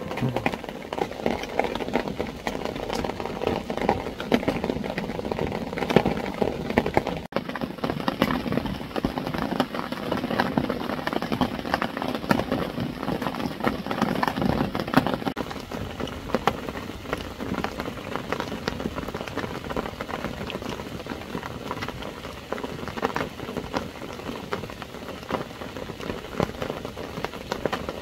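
Heavy rain falling steadily, a dense crackle of drops striking a surface close to the microphone.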